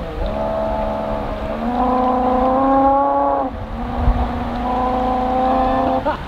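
Electric outboard motor of a home-built paddle-board boat whining as it drives its propeller, the whine stepping up in pitch about two seconds in, dipping briefly around three and a half seconds, then steady again. A single low thump comes about four seconds in.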